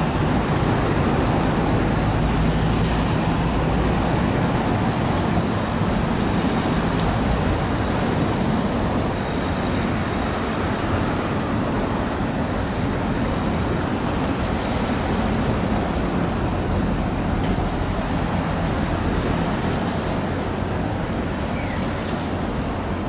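Steady low drone of a large bulk carrier passing close by, over a rushing wash of water and wind noise.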